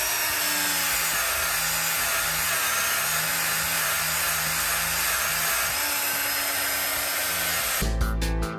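Milwaukee polisher running steadily with a fine-grit sanding disc pressed against steel pliers, its whir wavering slightly in pitch as it works the metal. Music comes in near the end.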